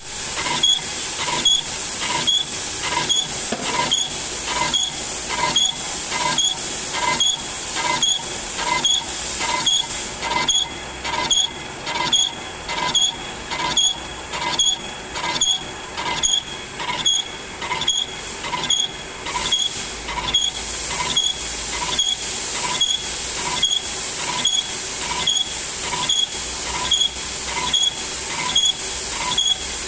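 Lathe turning a workpiece, with a regular pulse about one and a half times a second over a steady hiss.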